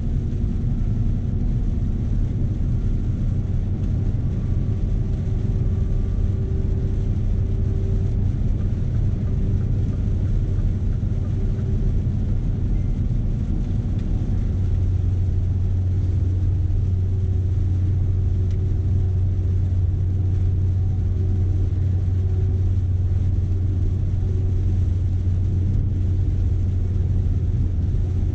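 Scania S520 V8 truck engine droning steadily inside the cab while driving with a 48-tonne load, with road noise underneath. The low drone gets stronger about halfway through.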